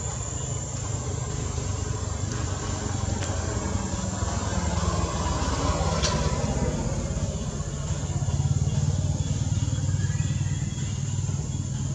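Steady low hum of a running engine, with one sharp click about six seconds in.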